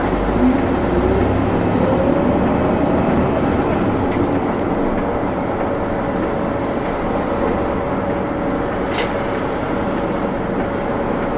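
City bus running, its engine and drivetrain heard as a steady rumble with a whine that rises in pitch over the first few seconds as the bus gathers speed, then holds level while it cruises. A single sharp click about nine seconds in.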